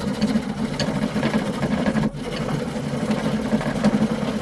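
A saw cutting steadily through the laminated riser of a Grozer biocomposite bow (maple core layered with bamboo, fiberglass, sinew and artificial horn), a dense rapid rasping that breaks off briefly about two seconds in. The material is very sturdy and hard to saw through.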